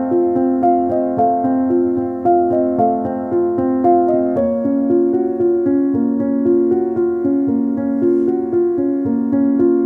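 Background music: a piano-like keyboard playing a steady, even run of notes.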